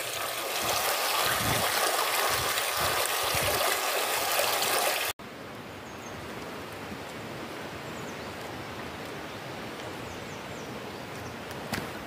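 Spring water running loudly. About five seconds in there is an abrupt cut to a quieter, steady rush of flowing water.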